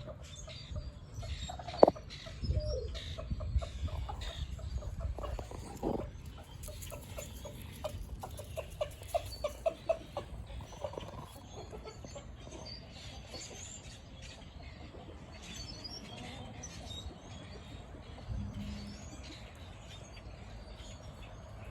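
A backyard chicken clucking softly on and off, with a quick run of clucks from about 8 to 10 seconds in. A sharp click about two seconds in is the loudest sound.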